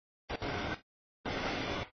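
Rumble and rail noise of a passing double-stack freight train, heard in two choppy half-second snatches cut off by dead silence, as the audio feed drops in and out.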